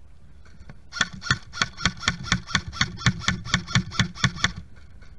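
Airsoft rifle firing a rapid string of about fifteen shots, roughly four a second, starting about a second in and stopping near the end.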